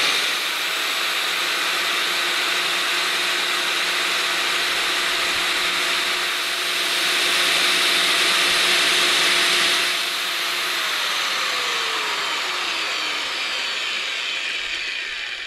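Corded DeWalt angle grinder running free at full speed with no load, a steady motor whine and hiss. After about ten seconds the trigger is let go and the motor winds down, its whine falling in pitch as it coasts to a stop.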